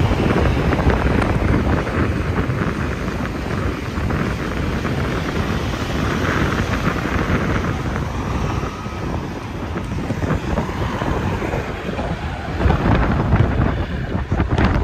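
Highway traffic rushing past, a steady low rumble of tyres and engines, with wind buffeting the microphone. The noise swells louder near the end as a vehicle goes by.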